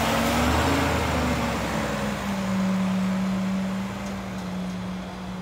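Diesel engine of a Mack LEU garbage truck with a McNeilus rear-loader body pulling away, a steady engine note over road noise. The engine note steps down about two seconds in and eases off a little toward the end as the truck moves off.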